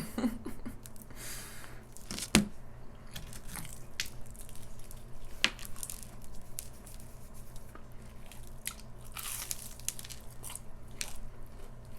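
Close-miked eating of crisp food: crunchy bites and wet chewing, with scattered sharp crunches, the loudest about two and a half seconds in and again about five and a half seconds in.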